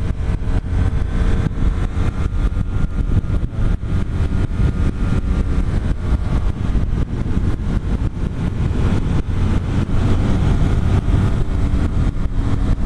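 BMW F800 GS motorcycle under way: its parallel-twin engine running steadily, under a constant rush and buffet of wind on the microphone.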